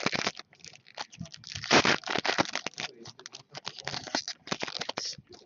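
2011-12 Upper Deck SP Authentic hockey card packs being torn open and handled: a run of sharp wrapper crinkles, tearing and card rustling, loudest about two seconds in.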